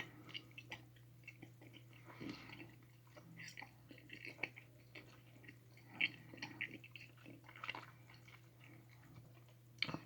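A person chewing a mouthful of dense, sticky giant gummy bear, with irregular faint wet smacks and clicks of the jaw and lips.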